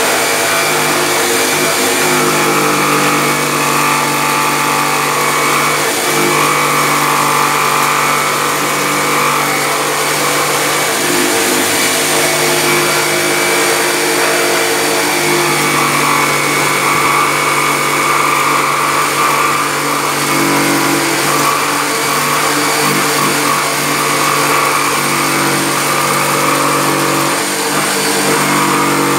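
Corded electric jigsaw running steadily as it cuts a handle opening into the top panel of a speaker cabinet, its pitch shifting slightly a few times as the blade meets more or less resistance.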